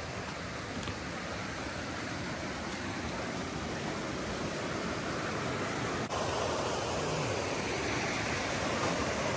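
Steady rushing of creek water over rocky falls and rapids below a footbridge, slowly growing louder, with a brief dropout about six seconds in. The falls are running low.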